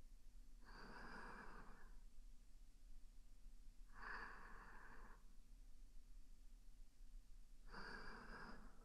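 A woman's soft, slow breathing close to the microphone: three breathy breaths, each about a second long, coming evenly about every three and a half seconds.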